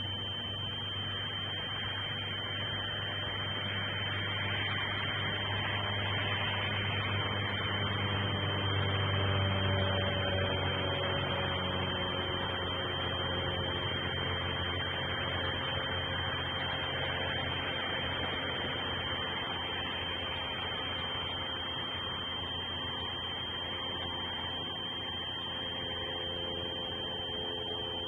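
Steady electrical hum and hiss with a constant thin high whine. From about ten seconds in, faint tones slowly fall in pitch beneath it.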